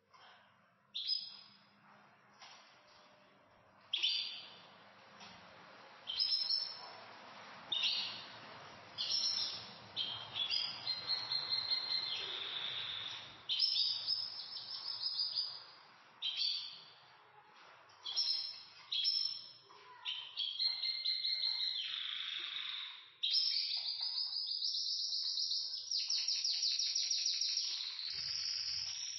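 Pet canaries singing: separate high chirps and short phrases, coming closer together after about ten seconds and running into a long rapid trill in the last few seconds.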